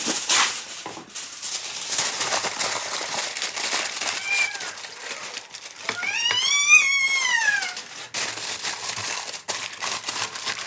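Aluminum foil crinkling as it is pressed into a pot. Over it, a toddler gives a short whine about four seconds in, then a longer cry that rises and falls from about six to eight seconds in; the child is cranky from refusing a nap.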